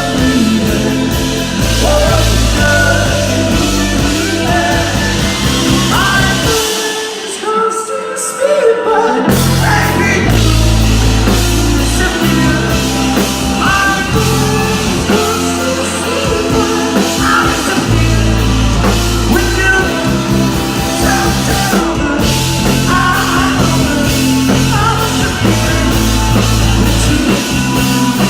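Rock band playing live, with a singer over the band. About seven seconds in the low end drops out for a couple of seconds, leaving mostly the voice, then the full band comes back in.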